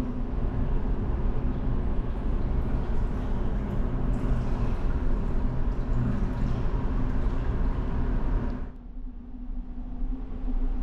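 Bath water sloshing and splashing in a ferry's onboard bath, over the steady low drone of the ship's engines. A little over eight seconds in, the water noise stops and only the engine hum is left.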